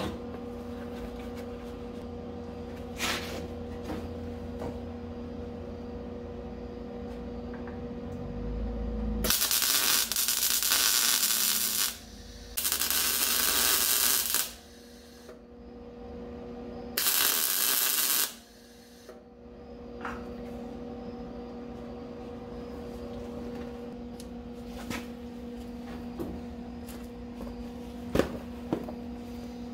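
Electric welding on sheet steel: three runs of welding arc, each two to three seconds long, starting about nine and a half, twelve and a half and seventeen seconds in, as a cross member is welded to the trunk pans. A steady hum sounds between the runs.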